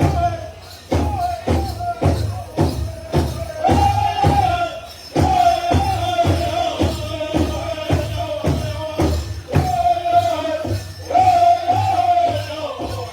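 Powwow drum group singing a men's chicken dance song: high voices over the steady beat of a large powwow drum, about two strokes a second.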